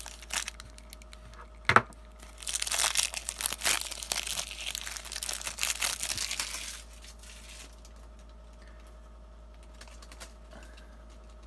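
Plastic shrink-wrap crinkling and tearing as it is peeled off a trading-card deck: tough, old wrap, with a sharp snap just under two seconds in, then a long stretch of crinkling that stops about seven seconds in.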